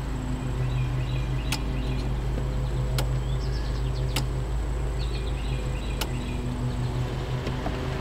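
An underhood relay on a 2003 Dodge Dakota clicking each time the fuel pump is switched on and off from a scan tool, a sharp single click every second or two, over a steady low hum. No fuel pump run is heard. The mechanic takes the clicking for the auto shutdown relay, which on Chryslers shares one driver with the fuel pump relay.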